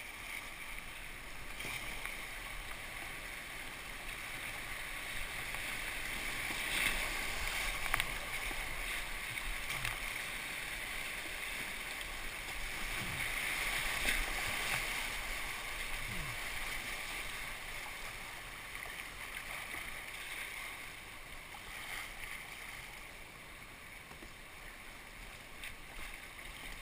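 River water rushing and splashing around a kayak as it runs a small whitewater rapid. The rush swells to its loudest about halfway through, where the boat is in the white water, then eases off as the river flattens out.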